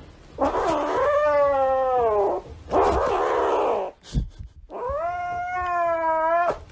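Grey kitten yowling and hissing while it clutches a plush toy that a hand is reaching for: a long rough cry falling in pitch at its end, a hiss, then a second long drawn-out yowl, the possessive warning of a cat guarding its toy.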